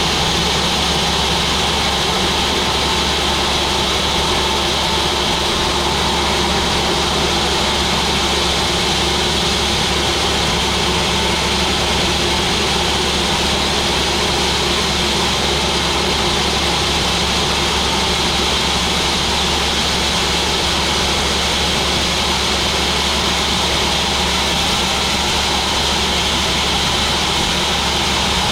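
Sawmill machinery running steadily: a loud, even mechanical drone with a low hum and a hiss over it, unchanging throughout.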